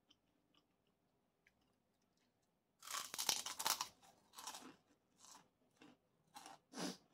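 A person bites into crunchy food and chews it with loud crunches. The first crunch comes about three seconds in, and shorter crunching chews follow every half second or so.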